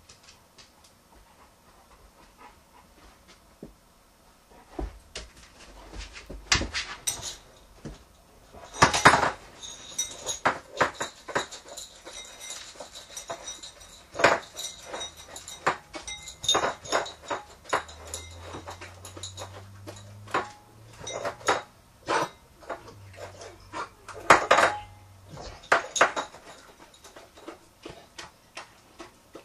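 A golden retriever eating from a small bowl on a countertop, starting a few seconds in: the bowl knocks and clinks against the counter in irregular bursts as the dog pushes its muzzle into it.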